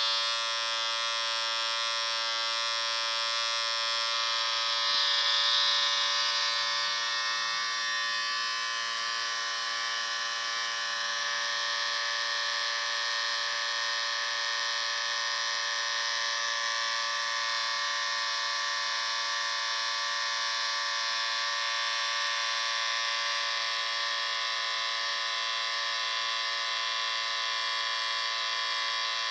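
Electric shaver motor running continuously: a steady buzz with many overtones, briefly a little louder about five seconds in.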